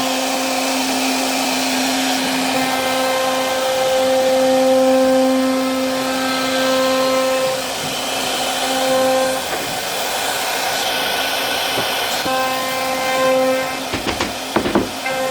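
CNC router spindle running with a steady whine over a hiss, carving wood. The whine fades for a few seconds in the middle and returns, and a few sharp knocks come near the end.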